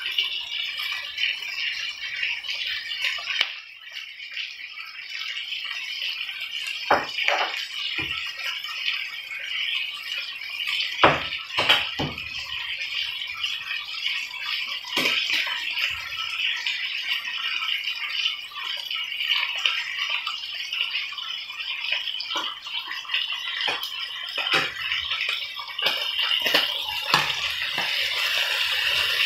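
Striploin steak slices sizzling steadily in hot oil in a frying pan, with a few sharp clicks and taps as a fork turns the meat against the pan.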